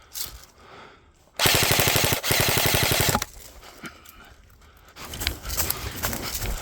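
Electric airsoft gun firing on full auto: two rapid bursts back to back, about two seconds in all. Rustling movement, like steps through brush, follows near the end.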